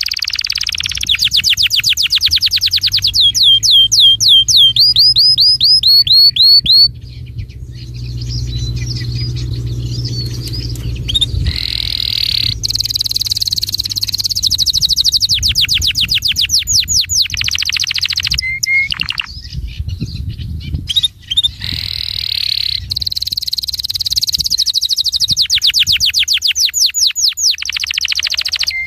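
A small songbird singing loud, high-pitched trills: rapid runs of repeated notes in phrases several seconds long, with short breaks between. A low rumble sits underneath for a few seconds near the middle.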